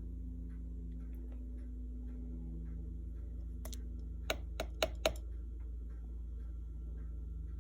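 A steady low electrical hum with faint, evenly spaced ticking and a quick run of five sharp clicks a little past the middle.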